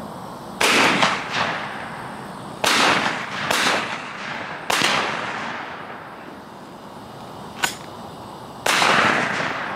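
Shotguns firing at doves: about six sharp reports spaced irregularly one to four seconds apart, each trailing off in a short echo.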